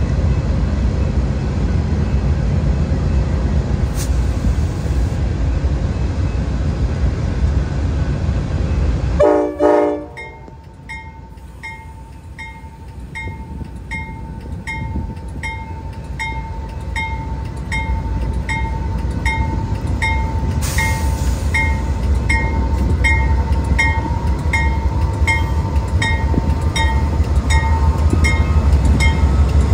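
Amtrak GE Genesis P42DC diesel locomotive standing at a station. A loud low rumble gives way about nine seconds in to a short horn blast. After that the locomotive bell rings steadily, about three strikes every two seconds, while the low rumble builds again near the end.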